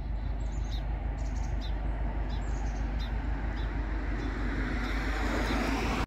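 Small birds chirping, short high calls repeating about once or twice a second, over a steady low rumble of outdoor ambience that grows louder near the end.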